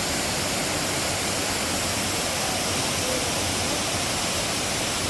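Waterfall pouring, a steady even rush of falling water that is running full.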